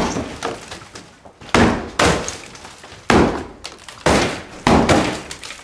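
Sledgehammers smashing into a plaster and wood-panelled interior wall: five heavy strikes at uneven intervals of about a second, each with a crash of cracking, breaking material.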